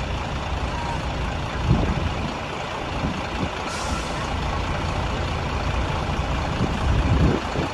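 A large coach bus's engine runs steadily as the bus rolls slowly across a gravel lot, turning as it goes. About four seconds in, the air brakes give a short hiss.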